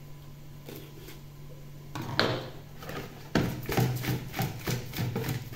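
Plastic colander of salted small whole fish shaken by hand in its plastic bowl: a rhythmic knocking and rustling, about four strokes a second, starting about three seconds in after a quieter stretch.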